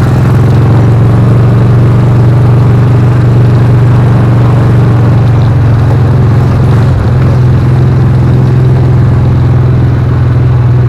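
Utility vehicle's engine running at a steady speed while driving, a constant low hum with a slight dip about seven seconds in.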